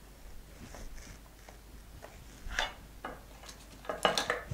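Light taps and clicks of sugarpaste cut-outs and a plastic paint palette being picked up and set down on a work board, a few scattered knocks with the clearest about two and a half seconds in and a short cluster near the end.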